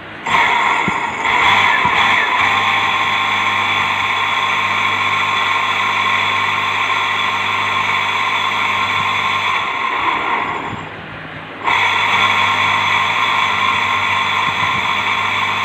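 Small 'tullu' water pump motor running steadily with a high whine and a low hum, now working after its carbon deposits were cleaned. It is switched off about ten seconds in, winds down, and is switched back on a second later.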